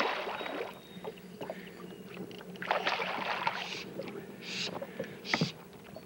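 A muskie splashing at the surface as it strikes a floating fly, then more bursts of water splashing and sloshing.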